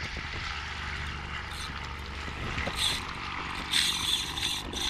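Steady wash of small waves and wind on the microphone, with short raspy bursts from a spinning reel, about three seconds in and again near the end, as a hooked fish pulls on the line.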